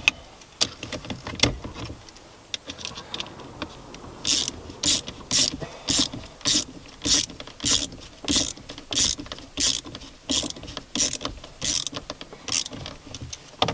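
Ratchet spanner tightening the nuts on a steering-ball clamp: a few scattered clicks, then from about four seconds in a steady run of short ratcheting strokes, about two a second, that stop near the end.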